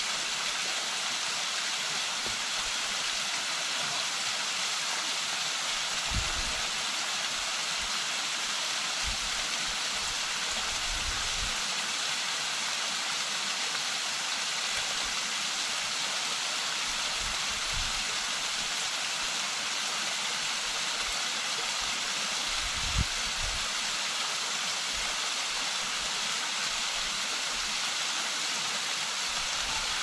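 Waterfall cascading down a rock face: a steady, even rush of falling water. A few brief low thumps come through, the loudest about two-thirds of the way in.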